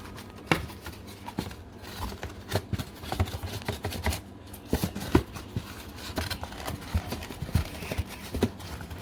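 Packaging of a boxed microphone being handled: irregular knocks, taps and light scraping as the microphone is worked out of its tight-fitting box.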